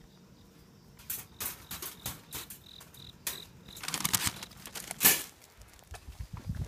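Wire cage trap rattling and clicking as its door is opened, then paper rustling as a cat scrambles out over the newspaper lining, with a sharp loud click about five seconds in. Four short high chirps sound in the middle.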